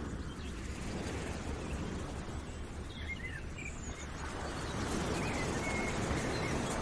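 Steady outdoor ambience, an even rushing noise, with a few short bird chirps partway through.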